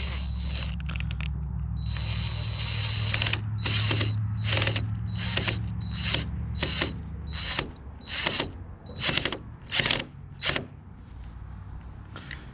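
Plastic zip tie being pulled tight through its ratchet head: a run of about a dozen short zipping strokes, over a steady low hum that fades about halfway through.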